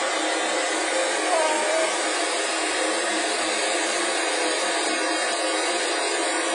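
Steady rushing white noise, even like a hair dryer's, played to calm a fussing baby.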